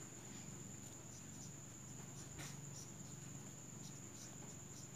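Crickets trilling steadily at a high pitch, with a few faint strokes of a marker writing on a whiteboard.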